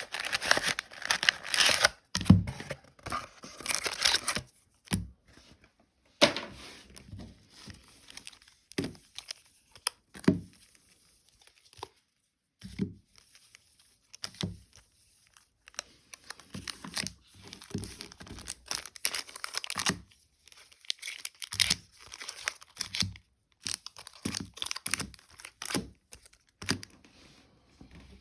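Pokémon card packaging opened by hand: foil booster-pack wrappers and plastic wrap tearing and crinkling in irregular bursts with short pauses, with a few soft thuds.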